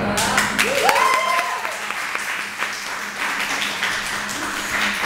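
Audience clapping and cheering, with a rising-and-falling whoop about a second in.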